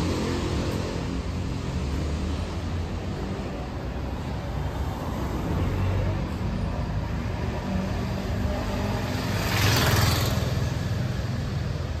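Steady city street traffic, cars running past with a low rumble. About ten seconds in there is a brief loud hiss.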